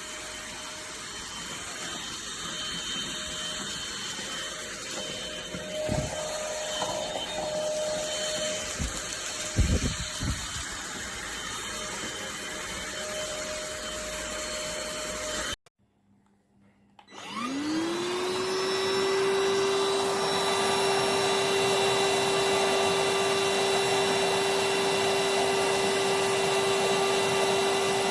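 K7 cordless handheld vacuum cleaner running steadily, with a few knocks about six and ten seconds in. It cuts off abruptly about halfway, then starts again, its whine rising quickly as the motor spins up and settling into a steady, louder run.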